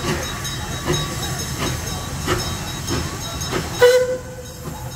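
Puffing Billy narrow-gauge steam locomotive chuffing as it pulls away, with sharp exhaust beats a little under a second apart that quicken slightly, over hissing steam. Near the end comes a sudden loud sound and a short steady whistle-like tone, and the steam hiss stops.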